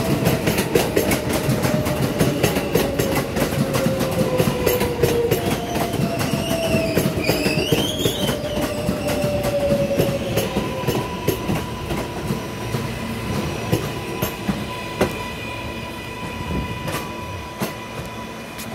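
R143 subway train running past along the platform: a rapid clatter of wheels over the rail joints and a motor whine slowly falling in pitch, with a brief rising wheel squeal about seven seconds in. The clatter thins out and fades over the second half as the last cars pass and the train pulls away.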